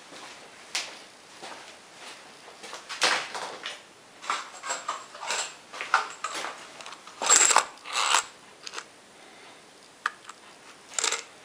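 Irregular clicks, knocks and rattles of small hardware being handled: steel socket-head cap screws shuffled and clattering in a clear plastic tub. The loudest clatter comes a little past the middle, with another short rattle near the end.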